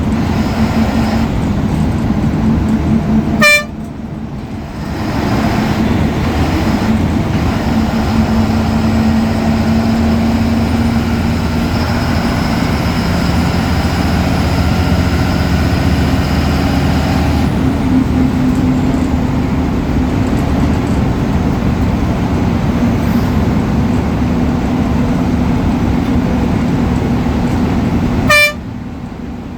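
Ashok Leyland BS4 bus diesel engine running steadily, with a faint high turbo whistle that rises slowly through the middle. Two brief horn-like toots come about three and a half seconds in and near the end, each followed by a short dip in the engine sound.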